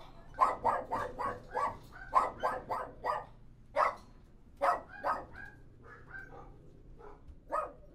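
A dog barking: a fast run of short barks, about four a second, for the first three seconds, then scattered single barks, mostly fainter.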